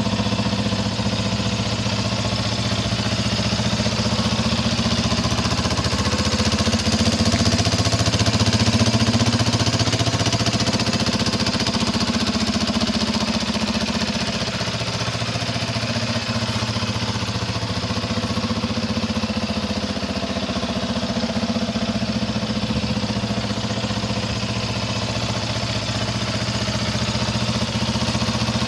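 Yamaha Raptor 700R ATV's single-cylinder four-stroke engine idling steadily, a little louder for a few seconds near the middle.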